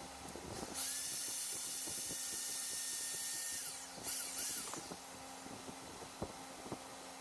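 Bosch GBH 2-28DV hammer drill's electric motor running with a high-pitched whine for about three seconds, then winding down, followed by two short bursts on the trigger.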